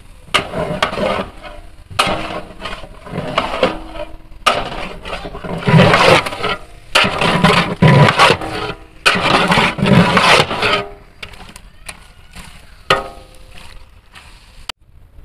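A ladle stirring and scraping chicken curry in a large cooking pot: irregular scraping and knocking strokes, loudest and densest from about six to eleven seconds in, then thinning out.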